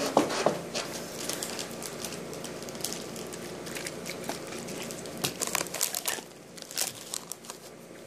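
Plastic snack bag crinkling close to the microphone, in irregular short crackles that bunch up around five to six seconds in.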